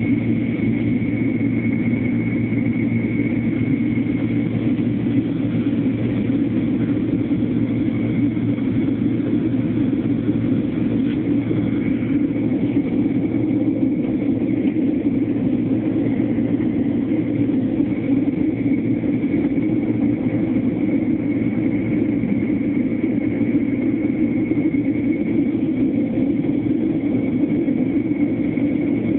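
Jet airliner's engines and airflow heard from inside the passenger cabin: a steady, loud drone with a low hum and a thin high whine, unchanging throughout.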